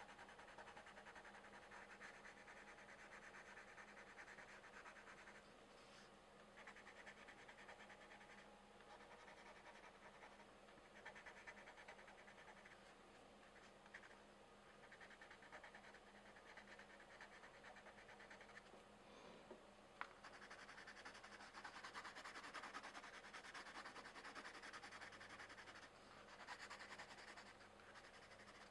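Colored pencils scratching on paper while shading, in stretches of a few seconds broken by short pauses, with a small click about twenty seconds in.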